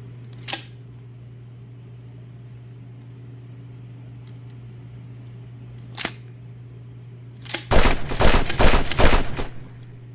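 Hard plastic object being handled: a sharp click about half a second in and another about six seconds in, then about two seconds of rapid clicking and clattering near the end, over a steady low hum.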